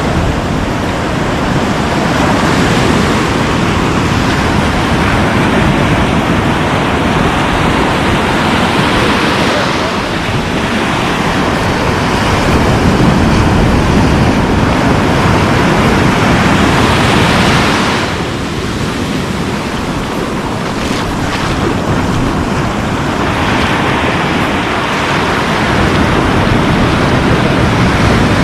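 Surf washing onto the beach at a river mouth, with wind buffeting the microphone; a continuous rushing that eases for a few seconds about two-thirds of the way through, then builds again.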